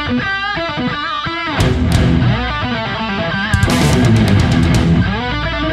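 Upbeat rock background music led by electric guitar, with a melody running over a steady low accompaniment and a quick run of sharp strikes a little past halfway.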